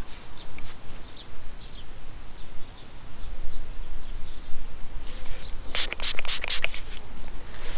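A small pump-spray bottle of water squirted four or five times in quick succession about six seconds in, misting a freshly dug coin to clean it. Faint high chirps, like distant birdsong, come and go before it.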